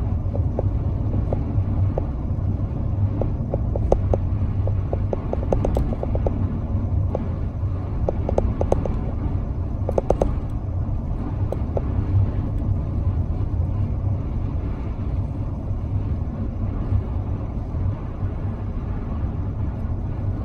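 Steady low rumble of a car driving at road speed, heard from inside the cabin, with scattered light clicks and ticks.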